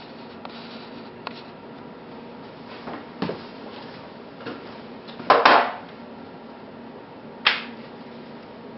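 A metal sheet pan being set down on a wooden cutting board: a few knocks, then a clatter of about half a second about halfway through, the loudest sound, and one more sharp knock near the end. A low steady hum runs underneath.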